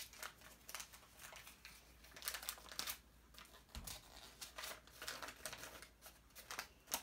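Small packaging wrapper crinkling in irregular, faint rustles as it is handled and opened by hand.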